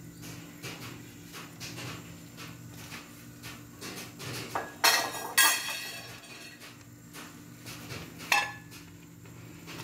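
Metal ladle knocking and scraping against a pan of boiling noodle soup, with a few loud clanks about five seconds in and another a little past eight seconds, over a low steady hum.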